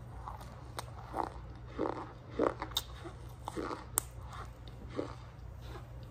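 Cornstarch being chewed close to the mouth: irregular squeaky, lightly crunchy bites with sharp clicks, most of them in the middle seconds.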